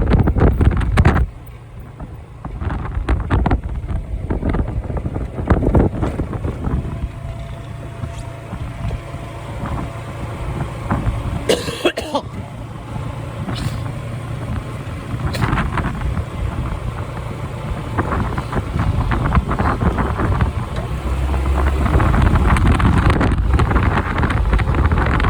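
Typhoon wind buffeting the microphone of a moving motorbike, over engine and road noise. The gusts swell and ease, loudest in the first second and again near the end.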